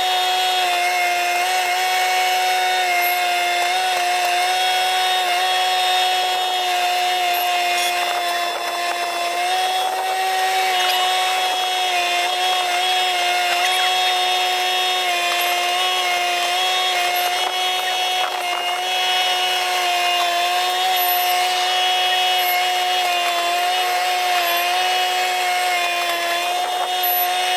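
Spray-injection pothole patching truck running its air blower, a steady machine whine with several held tones while it blasts emulsion-coated stone through its boom hose into a pothole.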